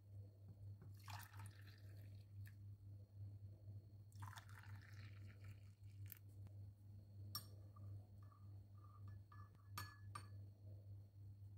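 Faint kitchen handling of tea in glassware over a steady low mains hum: two short liquid splashes about a second and about four seconds in, then a few light sharp clicks of glass.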